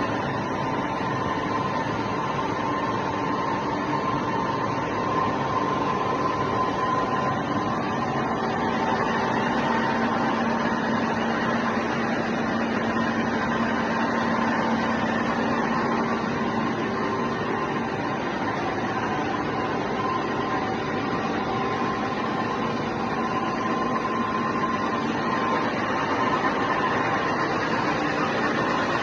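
MA655A2 machine tool running: a steady mechanical running noise with a few held whining tones that fade in and out.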